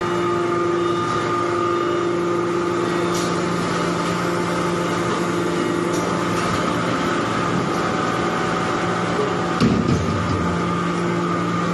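Hydraulic briquetting press running, with a steady hum from its pump and motor. Near the end a brief louder, wavering burst rises over the hum.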